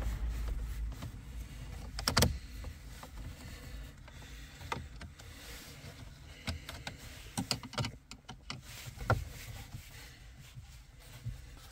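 Scattered clicks and light knocks from hands and a screwdriver working the screws and plastic trim around a car's dashboard radio, the sharpest click about two seconds in, over a low steady hum.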